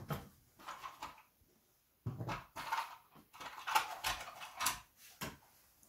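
Scattered handling noises: rustling and light knocks of small objects being moved about, in several short, irregular spells.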